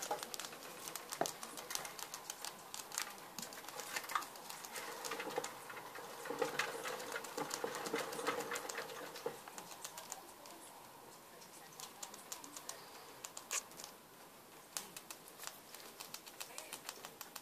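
Pet rats nibbling and clawing at the wire bars of their cage: many small, irregular clicks and scratches.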